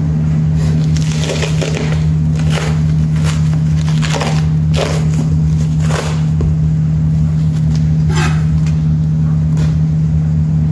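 Clear plastic cling wrap crinkling and crackling in irregular bursts as it is peeled off an eggplant by hand, over a steady low hum.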